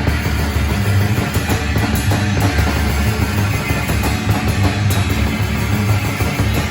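Death metal band rehearsing: electric guitar and drum kit playing loud and dense, without a break.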